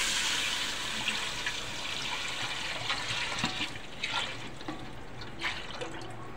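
Thin yogurt and gram-flour mixture pouring in a stream into a pot of hot oil with cumin and fenugreek seeds, a steady splashing hiss that fades and quietens about four seconds in, with a few small pops afterwards.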